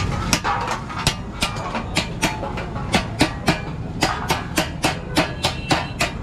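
Quick, even hammer taps on metal, about three a second, each with a short ring, over a steady low drone.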